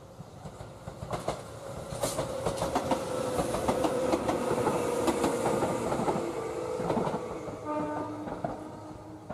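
A Tobu electric train passing on the track, its wheels clacking over the rail joints under a steady hum. It swells from about a second in and fades, with a steady pitched tone near the end.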